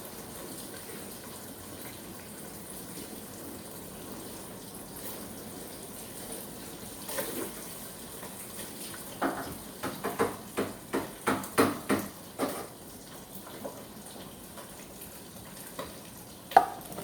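Water running, as from a kitchen tap, with a quick series of about ten sharp knocks or clatters midway through and one more knock near the end.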